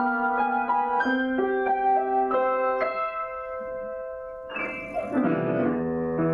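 Solo piano improvisation: a slow melody of single notes over held chords, one note left to ring and fade before a louder, fuller chord with low bass notes comes in near the end.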